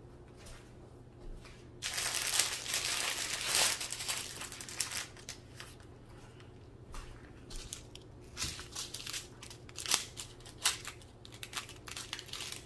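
Small plastic bags of diamond-painting drills crinkling as they are handled and cut apart with scissors. A loud stretch of crinkling starts about two seconds in, followed by scattered sharp clicks and rustles.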